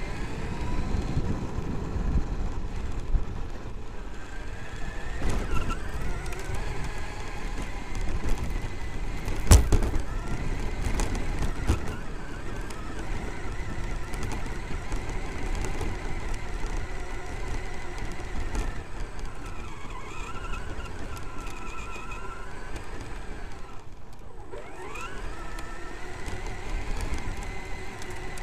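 Traxxas X-Maxx electric RC monster truck heard from its own chassis while driving: the brushless motor's whine rises and falls with the throttle over a rough rumble of tyres and chassis on the ground. A single sharp knock about ten seconds in is the loudest moment.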